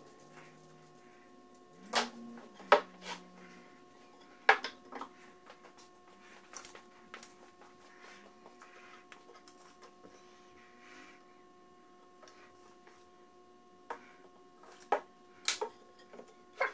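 Glued-up wooden 2x4 leg blanks being set down and shifted on a plywood shop table: a handful of sharp wooden knocks, a cluster a couple of seconds in and another near the end, over a faint steady hum.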